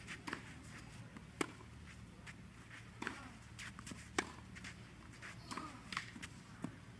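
Tennis ball being struck and bouncing during a rally: sharp pops about once every one to one and a half seconds, over a low steady background hum of the venue.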